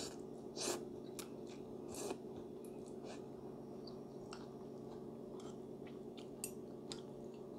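Metal fork and spoon clinking and scraping against a ceramic bowl while stirring and twirling instant noodles, with soft chewing. It comes as a dozen or so short, irregular clicks over a steady low hum.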